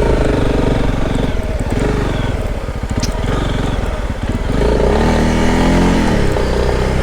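Honda CRF motorcycle engine running under way, the pitch rising as it picks up revs a little past the middle and then holding higher.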